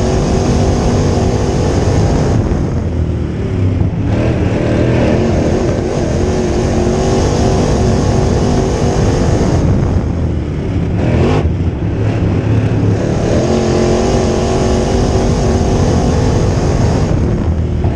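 A crate late model's V8 engine heard from inside the cockpit at racing speed on a dirt oval: held at high revs down the straights and falling in pitch as the driver lifts into each turn, three times over. A brief sharp crack cuts through about two-thirds of the way in.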